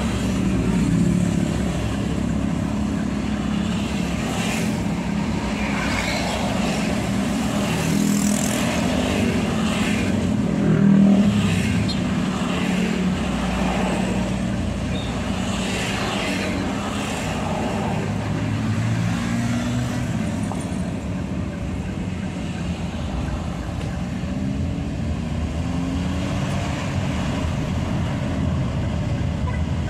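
Vehicle engine and road noise while travelling: a steady low engine note that drifts gently up and down in pitch, with a brief louder swell about eleven seconds in.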